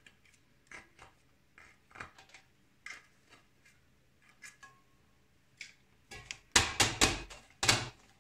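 A knife blade clicking and scraping faintly against the edge of a fluted metal cake tin as it loosens a baked cake. From about six seconds in comes a quick run of loud metallic knocks as the tin is rattled against the brass tray it sits on.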